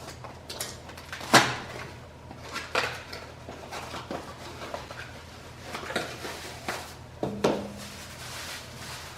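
Hands unpacking a parcel: a string of irregular clicks, knocks and rustles of packaging being handled, the sharpest knock about a second and a half in.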